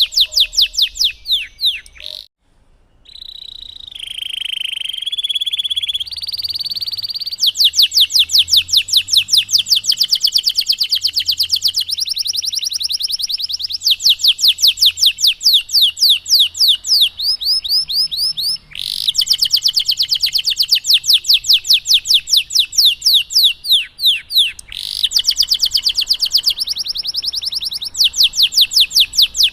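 Domestic canary singing a long, fast song: rapid rolls of repeated sweeping notes, with a held whistled tone a few seconds in. It breaks off briefly about two seconds in and again near nineteen seconds.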